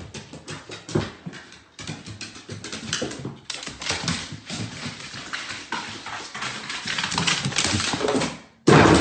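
A dog moving about, with many short irregular clicks and scuffs. The sound cuts off near the end and gives way to a loud noisy burst.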